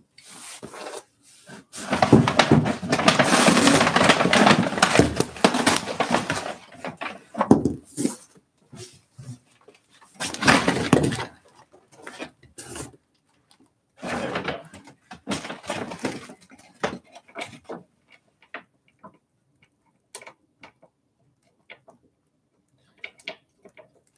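Cardboard shipping box being wrestled with: long rustling, tearing and scraping bursts about two seconds in, again around ten seconds and around fourteen seconds, then scattered light clicks and knocks.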